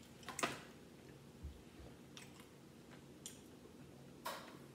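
A few light clicks and knocks from tableware handled on a table: a disposable plate pushed aside, loudest about half a second in, then a plastic tumbler picked up, with a short sip through its straw near the end.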